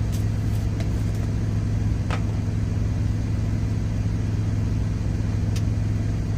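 Steady low drone of an idling truck engine heard inside the cab, with a few light clicks and taps from a jar being handled and opened.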